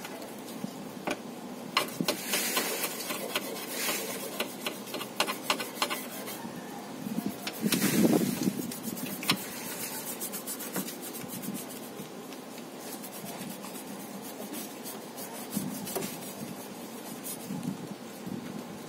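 Scratchy hand scrubbing and rubbing on a car door's parts, with scattered irregular clicks and a louder knock and scrape about eight seconds in.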